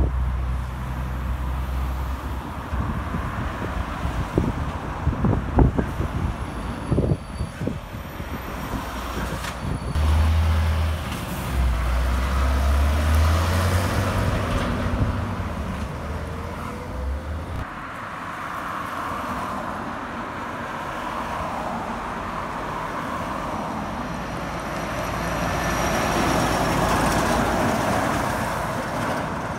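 Heavy trucks going through an intersection. There are a few sharp knocks about five seconds in. Then a container truck and trailer's diesel engine runs low and heavy as it turns the corner, and a tipper truck and trailer's tyre and road noise swells as it passes near the end.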